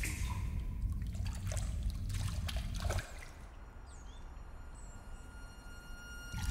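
Water trickling and dripping over a low rumble, cutting off abruptly about three seconds in and leaving a quieter hush.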